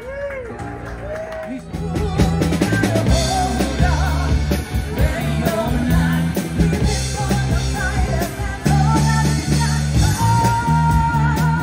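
Live rock band playing with a woman singing: a few sung lines over light backing, then the drum kit and bass guitar come in together about two seconds in, and the full band plays on.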